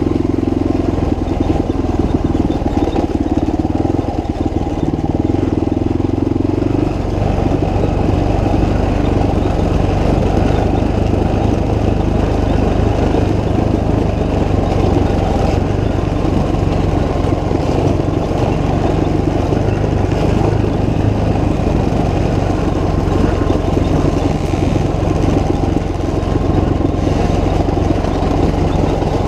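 Motorcycle engine running steadily, loud throughout; its tone changes about seven seconds in.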